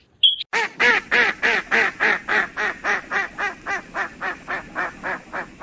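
A bird calling in a rapid run of short, harsh, quack-like notes, about three to four a second, getting slightly quieter near the end.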